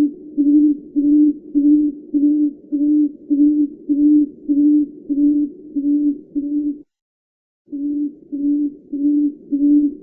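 Tawny frogmouth calling: a long, even series of low, soft 'oom' notes, nearly two a second. About two-thirds of the way through, the notes cut out into dead silence for under a second, then carry on at the same pace.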